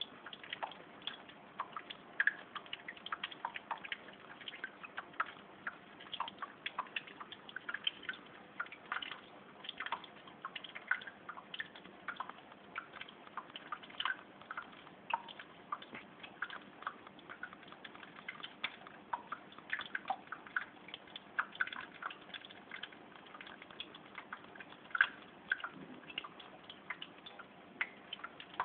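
Water dripping and trickling in a paludarium: many small irregular plinks of drops falling into water, several a second, over a faint steady hum.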